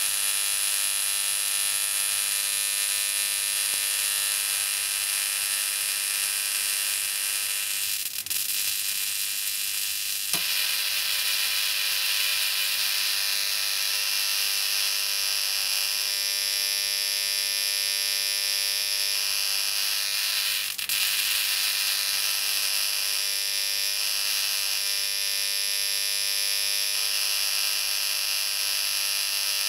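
High-voltage discharges arcing through magnesium shavings: a steady high-pitched sizzling hiss with a lower electric buzz that fades in and out. Sharp snaps stand out about eight, ten and twenty-one seconds in.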